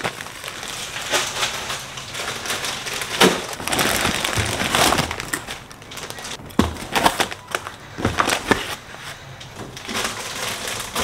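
Crinkly plastic snack bags rustling and crackling as groceries are unpacked and put into the fridge, with a few scattered knocks of items being handled and set down.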